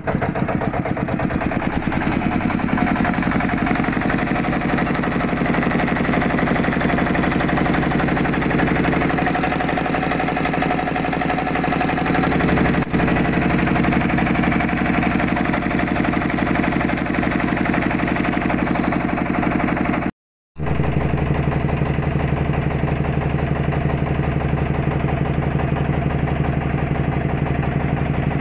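An engine running steadily at a low, even speed. It cuts out for a split second about twenty seconds in, then carries on with a steadier, deeper note.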